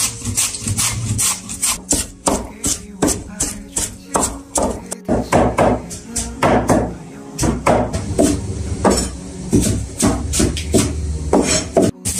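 Pumpkin being shredded on a wooden hand grater with metal blades: quick rasping strokes, about two or three a second.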